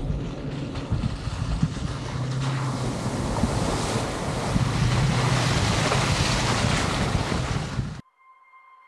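Wind noise on the microphone mixed with a Toyota Tacoma pickup approaching on a wet, slushy dirt road, its engine and tyres growing louder as it nears. The sound cuts off suddenly near the end.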